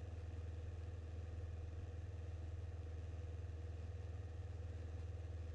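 Grumman Tiger's four-cylinder Lycoming O-360 engine and propeller running steadily in cruise flight: a low, even drone with a fast pulsing beat.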